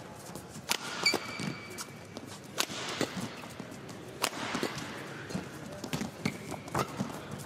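Badminton rally: sharp cracks of rackets hitting the shuttlecock at irregular intervals, roughly one to two seconds apart. About a second in there is a brief high squeak, typical of a shoe on the court mat.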